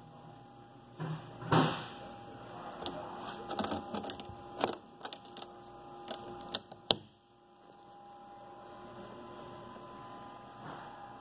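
Clicks and knocks from handling the grey metal sound enclosure of a QSonica Q700 sonicator, ending in a sharp knock about seven seconds in as the enclosure door is shut. A faint steady hum follows.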